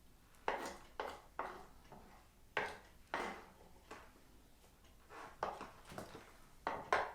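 Kitchenware being handled: about ten short, irregular knocks and scrapes.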